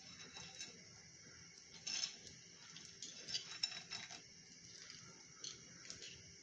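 Small irregular clicks and crackles of hands breaking up and handling dried lentil dumplings (bori) over a plate, loudest about two seconds in and again between three and four seconds in.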